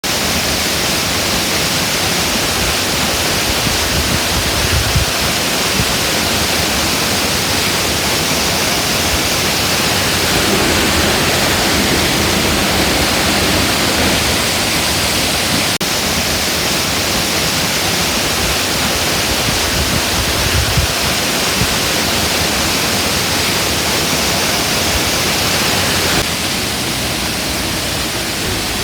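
Steady, loud rushing of falling water, like a waterfall or cascading mountain stream, an even hiss with no pitch. It drops slightly in level near the end.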